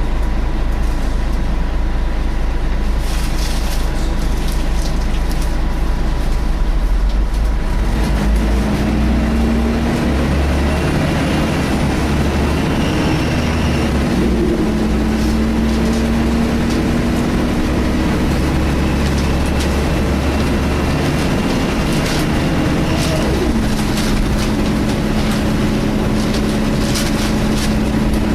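Scania L113 bus heard from inside while under way: a steady low engine and road rumble, with droning tones that appear about eight seconds in and rise and fall several times as the engine note changes. A faint high thin whine comes and goes.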